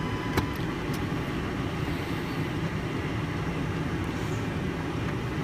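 Idling VW Amarok engine, a steady low rumble. About half a second in, a steady beep tone cuts off with a sharp click.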